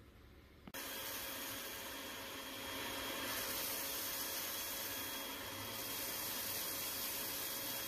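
Vacuum cleaner switched on just under a second in, then running steadily with a faint whine as its nozzle sucks bird seed out of a car's cabin air filter housing.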